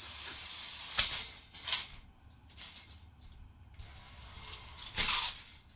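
Motor-driven tape measure prototype running its steel tape out and reeling it back: a sharp click about a second in, then a series of short rattling, scraping bursts, the loudest near the end.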